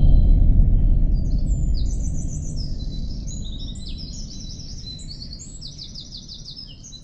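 Birds chirping and singing in quick, repeated high trills, over a deep rumble that is loud at the start and fades away over the first few seconds.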